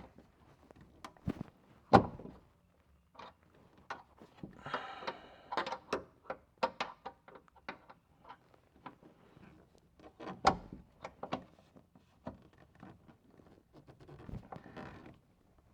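Scattered clicks and knocks of short screwdrivers working the manual release of a BMW Z4 E89 folding hardtop's hydraulic cylinder, trying to unlock it, with louder knocks about two seconds in and again about ten seconds in.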